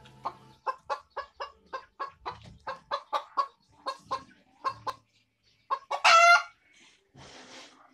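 Chickens clucking in a steady run of short calls, about three or four a second, with one louder, longer call about six seconds in.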